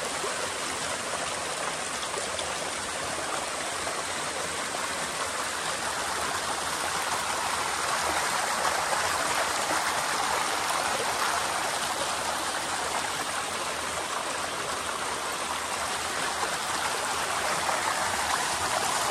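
Mountain torrent cascading over rocks into a pool: a steady rush of falling and splashing water.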